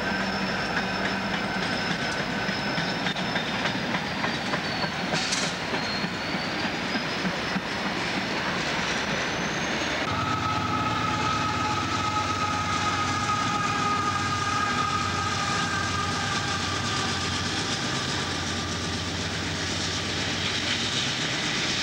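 CSX freight train passing close, its wheels clicking over rail joints in a quick run of beats, with a high whine that dips and rises in pitch. About ten seconds in, the sound changes abruptly to another passing CSX freight train, its diesel locomotives giving a steady hum and whine.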